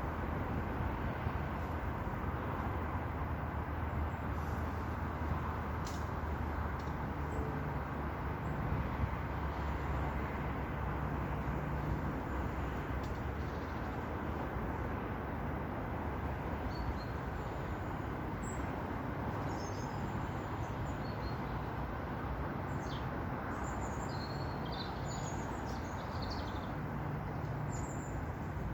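Steady outdoor rushing noise with a low hum underneath, and small birds chirping now and then over the second half.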